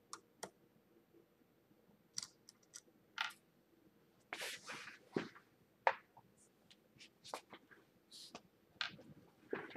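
Scattered small clicks, taps and scrapes of hand tools and parts being handled and set down on a plywood bench top, with a short rustling scrape about four seconds in.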